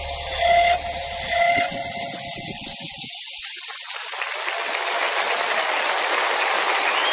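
Soundtrack audio: a few soft held musical notes fade out, and about three seconds in a steady hiss, like rain or distant applause, takes over and slowly grows louder.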